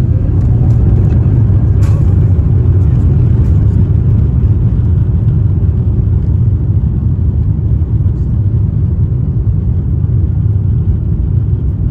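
Airbus A350-900 on its takeoff roll, heard from inside the cabin: the Rolls-Royce Trent XWB engines at takeoff thrust and the wheels on the runway make a loud, steady, deep rumble.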